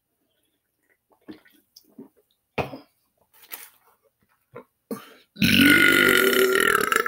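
A man's long, loud belch starting about five seconds in and lasting under two seconds, its pitch rising at first, after a few faint clicks and mouth noises.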